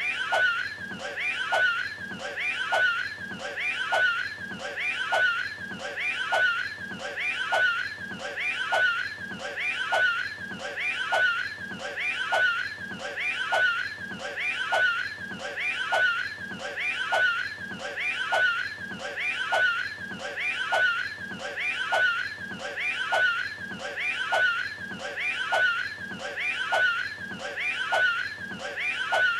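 A cartoonish voice retching, as if throwing up a hairball. The same short heave is looped over and over at about one a second.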